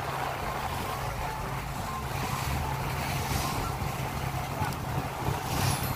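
Fishing boat's engine running steadily under way, with water rushing along the hull.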